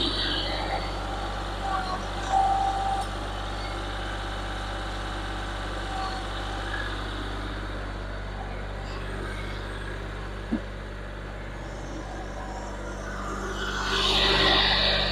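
Kioti CK4020 compact diesel tractor running steadily, with a single sharp click about ten and a half seconds in and a rustling swell near the end.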